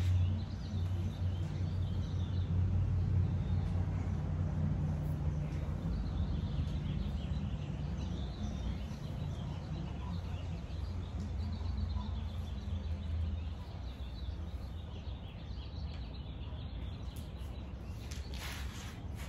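Outdoor ambience: birds chirping over a steady low rumble that eases off about two-thirds of the way through, with a short rushing hiss near the end.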